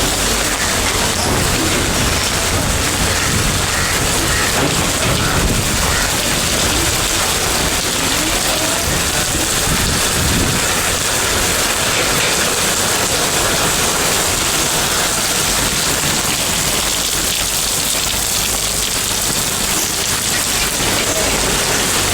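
Steady, loud rain: a dense, even hiss of rainfall that holds without a break.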